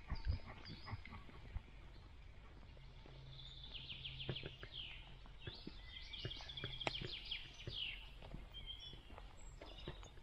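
Forest birdsong: a small songbird singing quick trills and runs of repeated high notes for several seconds in the middle, over scattered soft footfalls and clicks on the path.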